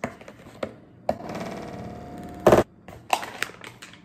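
Cardboard baking-mix box being torn open by hand. A few sharp clicks come first, then a long ripping tear from about a second in, then a loud sharp rip about two and a half seconds in, and a few crinkling clicks near the end as the pouch is pulled out.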